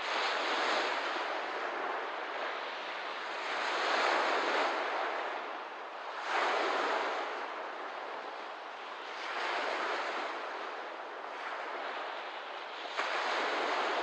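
Small waves washing in on a lakeshore, a new wash every three seconds or so, each swelling and then fading away; two of them arrive more suddenly, about halfway through and near the end.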